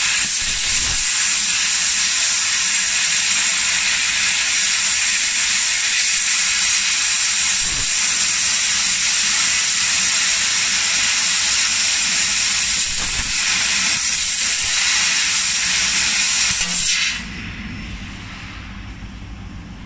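Fiber laser cutting head cutting thin sheet metal: a loud, steady hiss of assist gas blowing from the nozzle. It cuts off suddenly near the end, leaving a quieter low machine hum.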